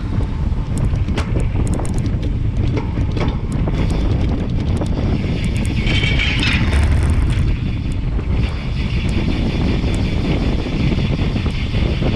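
Road bike riding at speed with heavy wind buffeting the handlebar camera's microphone over tyre rumble. From about eight seconds a steady high buzz joins in as the rider stops pedalling and coasts: the freewheel hub ticking.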